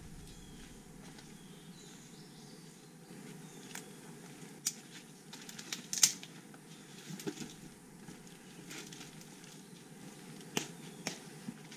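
A hiker's footsteps on the forest floor: irregular sharp snaps and crackles, about eight of them, the loudest about six seconds in.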